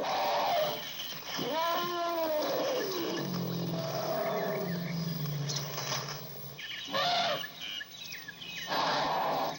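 Elephant calling: an arching call that rises and falls about two seconds in, then a low steady rumble. Small birds chirp in the background, with a couple of short rustling noises near the end.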